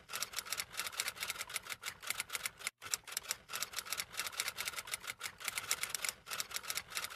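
Typing sound effect: a rapid, uneven run of typewriter key clicks, broken by one brief pause a little under three seconds in.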